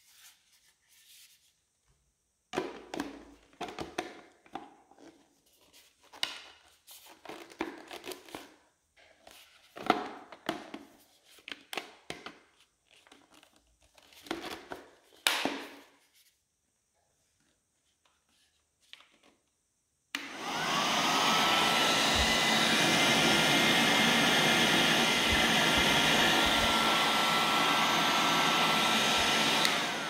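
Plastic clicks and knocks as the parts of a handheld vacuum cleaner are handled and fitted together. About two-thirds of the way in, the Fakir AS 1037 NT 3.7 V cordless handheld vacuum is switched on: its small motor spins up and runs steadily with a high whine, and stops at the very end.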